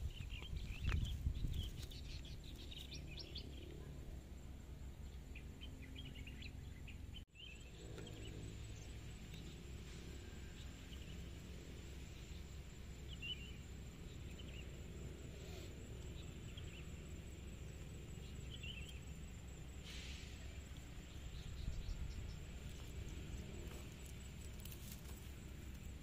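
Rural outdoor ambience: scattered short bird chirps over a steady high insect drone and a low steady rumble, dropping out briefly about seven seconds in.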